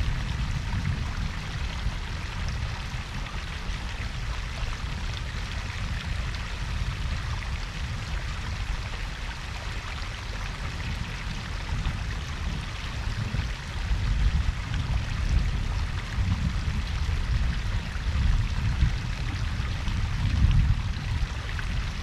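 Garden koi pond's waterfall and babbling brook: water pouring and trickling steadily, with a deep rumble underneath that swells a few times, most strongly in the second half.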